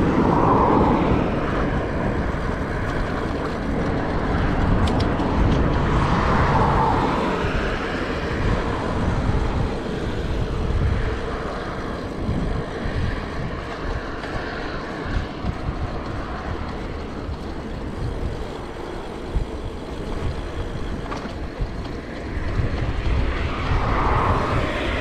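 Wind buffeting an action camera's microphone on a moving bicycle: a steady, uneven low rumble that swells and eases.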